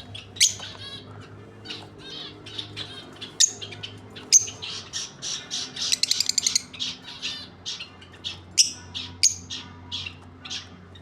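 A pair of lovebirds calling: a continual run of shrill chirps and squawks, with a rapid buzzy chatter about six seconds in.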